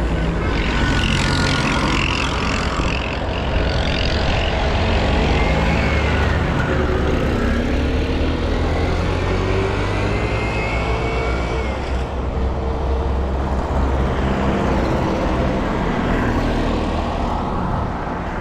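Road traffic: motor vehicle engines running close by with a steady low rumble.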